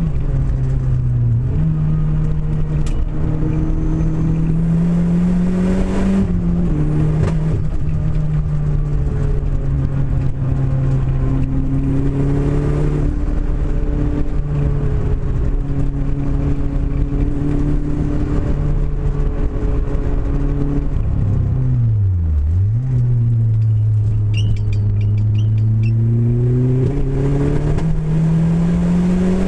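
Renault Clio engine running, its note climbing slowly, stepping down about a fifth of the way in and dipping sharply before picking up again about three-quarters of the way through. The car has a misfire.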